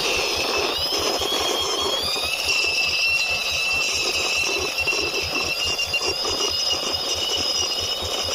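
Toy police helicopter sounding a steady high-pitched electronic whine, with a fast even ticking pulse under it; the whine rises in pitch just before and then holds level.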